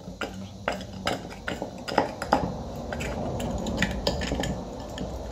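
Plastic clicks and knocks as an electric fan's blade hub is turned and tightened onto the motor shaft by hand, with two louder knocks about two seconds in. A low rumble runs underneath in the second half.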